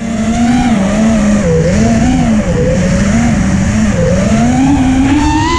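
A motor running with a steady whine whose pitch keeps sliding up and down every second or so, as the throttle is eased on and off.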